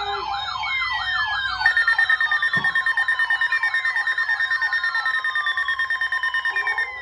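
Warning sirens sounding together: a siren warbling rapidly up and down, joined a little under two seconds in by a steady, rapidly pulsing alarm tone that stops near the end, while several siren tones slide slowly down in pitch.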